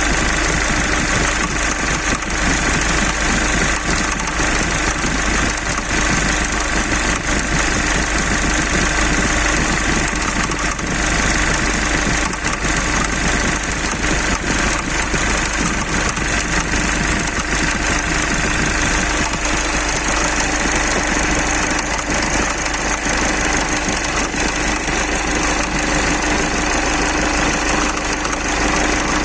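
Mitsubishi 4D56 four-cylinder diesel engine running steadily with a knock, the engine knock the owner is recording to diagnose.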